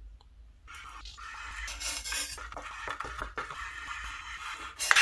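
Kitchen knife slicing sundae, Korean blood sausage, into rounds on a wooden cutting board. A run of quick cuts: the blade scrapes through the sausage and ticks against the board many times.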